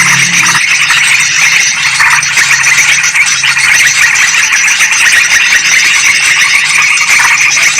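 Dense, unbroken chattering of many yellow-vented bulbuls and sooty-headed bulbuls calling noisily over one another, a bird-trapping lure recording. A low hum runs under it for the first half second.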